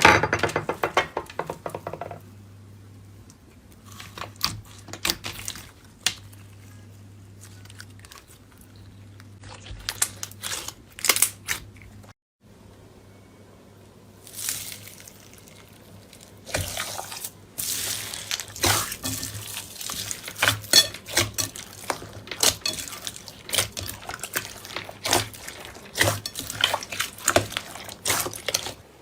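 Slime being squeezed and poked by hand, giving wet, sticky clicks and pops that come in clusters and grow dense in the second half. A low steady hum lies under the first part.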